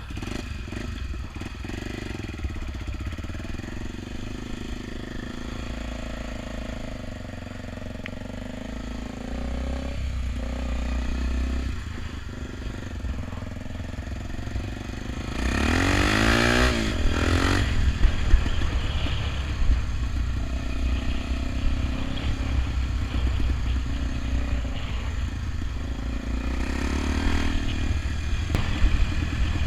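Honda XR 250 Tornado's single-cylinder four-stroke engine running steadily. About halfway through, the revs rise in a climbing sweep as it accelerates, and the engine stays louder afterwards.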